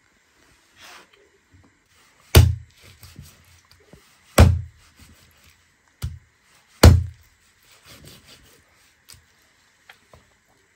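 Heavy dao (machete-style chopping knife) chopping raw chicken pieces on a wooden stump chopping block: three loud, sharp chops about two seconds apart, with a lighter chop just before the third and a few faint knocks between.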